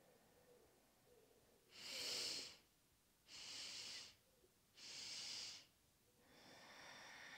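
A person breathing in with three short sipped in-breaths, about a second and a half apart, then starting a long, slow exhale about six seconds in: a yogic sipping-breath exercise.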